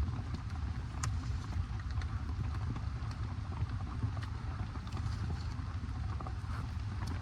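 Rain falling on a bike camper and its tarp: scattered sharp drop taps over a steady low rumble.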